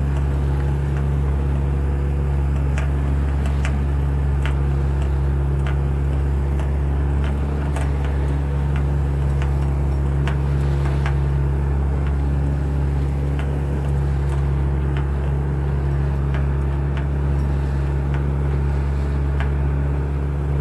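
A boat's motor running steadily at a constant speed, a low hum with a steady pitch and no change in revs, under rushing water and scattered light clicks.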